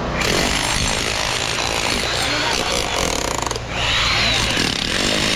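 A handheld power tool running loudly, easing off briefly about three and a half seconds in, then running again.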